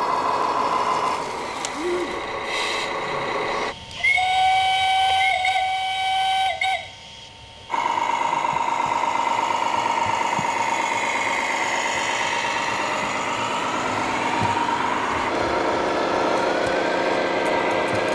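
A loud multi-tone horn sounds for about four seconds in the middle, between stretches of a steady droning hum.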